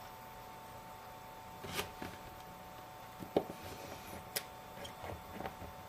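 A few faint, sharp clicks of a small screwdriver and tiny screws against the iPhone's metal shield plate as it is screwed back on, over a faint steady hum.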